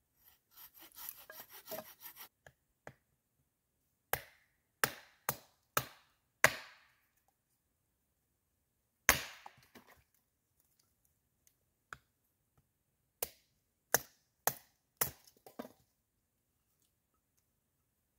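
Small hatchet chopping firewood into kindling on a tree stump. Wood pieces rustle and scrape as they are handled, then come sharp chops: five in quick succession, one loud single chop, and another quick run near the end.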